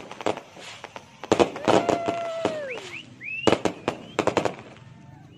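Fireworks display: aerial shells bursting in two clusters of rapid, crackling bangs, one about a second in and one past the middle, with several whistling tones gliding up and down in pitch between them.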